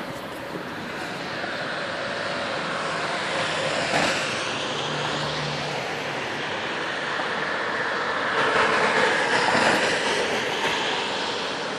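A broken-down tram being pushed by a second tram rolls toward a stop, its wheel and rail noise growing louder, loudest between about eight and ten seconds in. There is a short knock about four seconds in.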